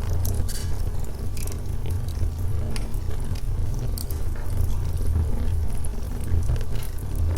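Wood logs burning in a fireplace: frequent irregular crackles and snaps over a steady low rumble of the flames.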